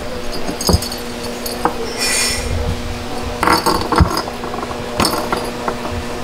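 A cat stirring and rolling over on cloth bedding: scattered soft knocks, rustles and a few light clinks, over a steady low hum.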